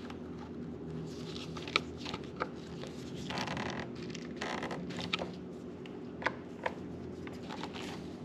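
Hand tools working on a motorcycle's battery terminal bolts: scattered small metallic clicks and taps, with two short runs of rapid clicking about three and four and a half seconds in.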